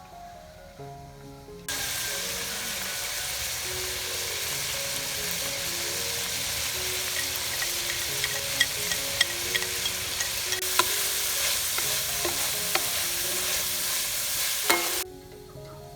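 Food sizzling hard in a hot pan as it is stir-fried, starting suddenly about a second and a half in and cutting off shortly before the end, with sharp clicks of the spatula against the pan in the second half.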